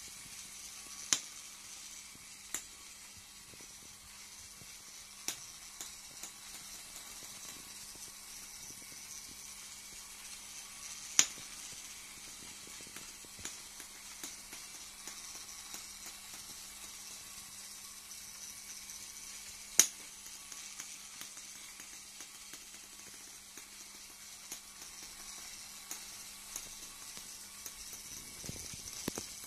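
LEGO 9V train running slowly around its track: a faint steady motor hum under a high hiss, with a few sharp clicks, the loudest about a second in, about eleven seconds in and near twenty seconds in.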